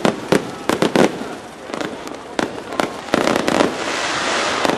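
Fireworks display: aerial shells bursting in quick succession, with several sharp bangs in the first three seconds. About three seconds in, a dense, continuous crackle of glittering crackling stars takes over.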